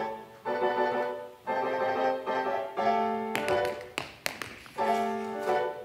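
Keyboard music plays short held chords, one about every second. From a little past halfway, sharp tap-shoe strikes on the floor join in, several in quick succession.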